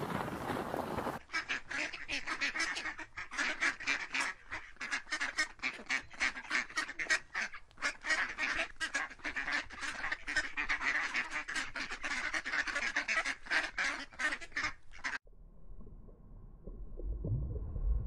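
Mallard ducks quacking, a long fast run of repeated quacks that starts about a second in and stops abruptly about 15 seconds in. A faint low rumble follows.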